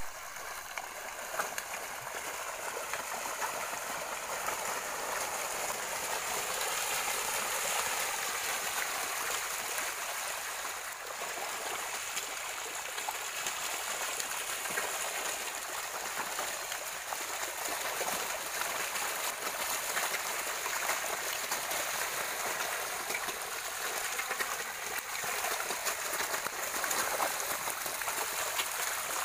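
A tightly packed shoal of hybrid magur catfish thrashing at the pond surface in a feeding frenzy, a steady churning and splashing of water with many small slaps and drips.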